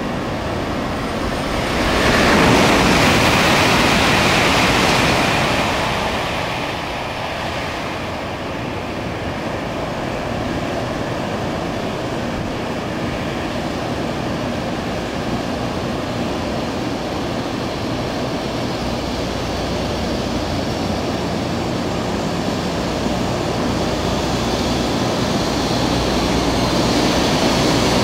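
Shinkansen bullet train, a 100 series, approaching along the platform track: a steady rushing rumble that grows louder over the last few seconds as it pulls in. A louder wide rush of noise swells about two seconds in and fades a few seconds later.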